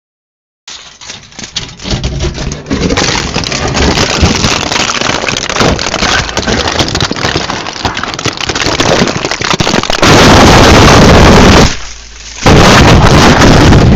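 Harsh, distorted crackling noise full of sharp pops that builds up, then turns about ten seconds in into a solid, clipped blast at full loudness that drops away briefly near twelve seconds: a deliberately overloaded loud-noise audio.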